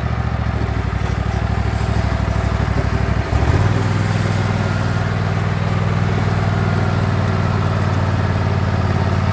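Husqvarna LGT2654 lawn tractor's V-twin engine running steadily as the tractor drives across grass. About three seconds in, the engine note dips briefly, then settles into a changed, slightly louder note.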